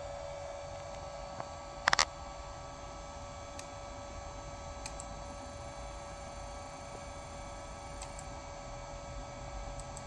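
Steady electrical hum and whine from a repaired Mitsubishi MR-J2S-200A AC servo drive and its motor running on test, with a short burst of loud clicks about two seconds in and a few faint ticks after.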